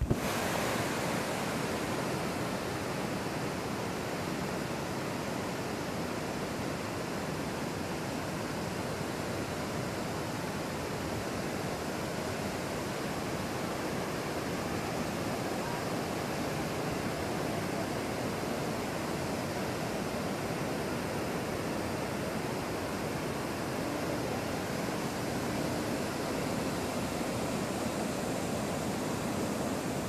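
Multilevel waterfall and the rapids below it rushing steadily, a dense, even sound of water falling and tumbling over rocks.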